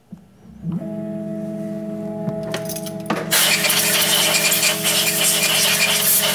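Milling machine spindle motor starting up about a second in and running with a steady hum; about three seconds in, a loud steady hiss of compressed air joins it.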